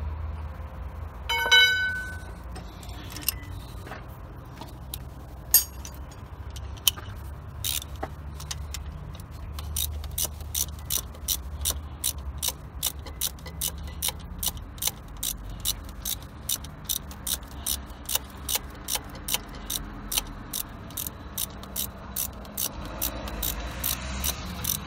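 Ratchet wrench clicking steadily, about two to three clicks a second, as a loosened starter-motor mounting nut is run off. Earlier there are a few sharp metallic clinks of tools, one ringing briefly about a second and a half in.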